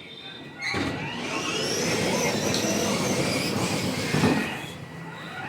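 Child's ride-on toy car driving, with a whine whose pitch rises and falls and wheels rolling on the floor.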